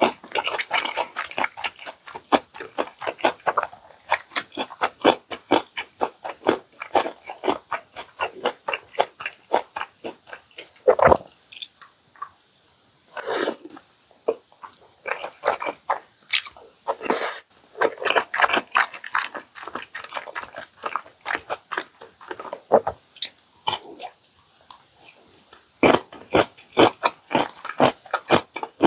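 Close-miked mukbang eating sounds: a person steadily chewing and biting jjajang ramyeon and crispy chicken nuggets, with many quick wet clicks and crunches, and a few louder mouth noises in the middle.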